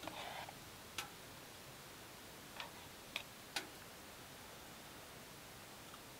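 Spoon scraping and clicking against a metal camp mug while eating: a short scrape at the start, then four sharp clicks over the next few seconds.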